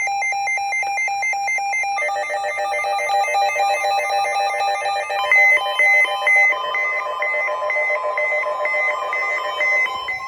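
Weather radio receivers sounding their alert alarms: rapid electronic beeping, with more beep patterns at other pitches piling on about two seconds in and a slower beat with another tone joining midway. It marks a newly issued weather warning coming over NOAA weather radio.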